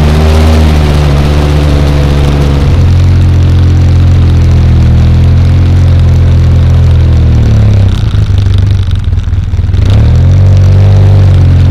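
ATV engine running steadily under load. It drops back and sputters about eight seconds in, then picks up again near the end.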